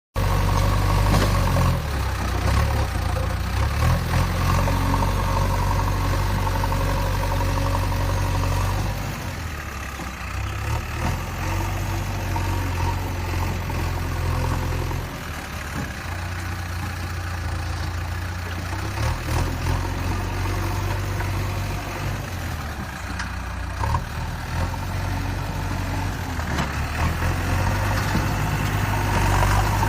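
Backhoe loader's engine running at a steady idle with a deep, even rumble, easing off briefly twice.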